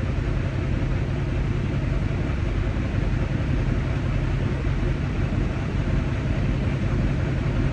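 Semi truck's diesel engine idling steadily, heard from inside the cab as an even low rumble.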